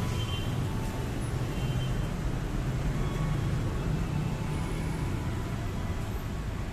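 Steady low rumble of outdoor background noise at a commuter rail platform, with no single event standing out.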